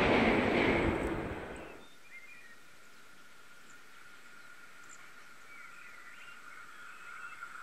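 Rumbling noise of a train going past, which cuts off abruptly just under two seconds in. It leaves a quiet rural track with a few bird chirps and a faint steady high tone.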